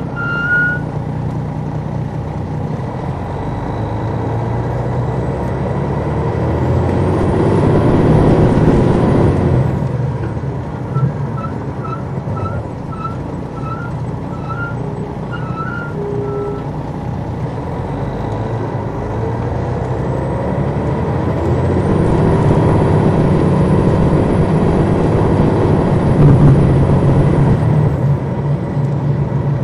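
Interior of a 2002 MCI D4000 coach with its Detroit Diesel Series 60 diesel engine running under way, pulling harder twice: the engine noise swells for a few seconds each time, with a high whistle that rises, holds and falls away.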